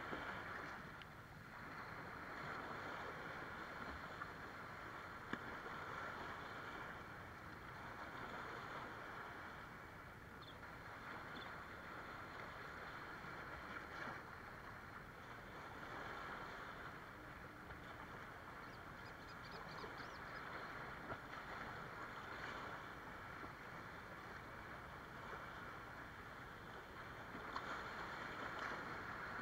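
Small waves breaking among rocks and washing up the sand at the water's edge. The surf makes a steady wash that swells with each breaking wave, most strongly near the end.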